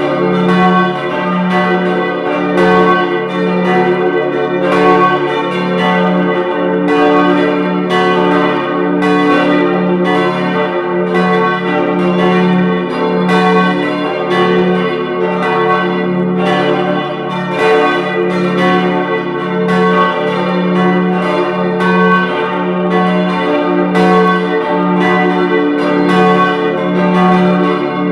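Full peal of four swinging church bells tuned D, F-sharp, A and B, striking over and over in an irregular overlapping pattern, each stroke ringing on into the next.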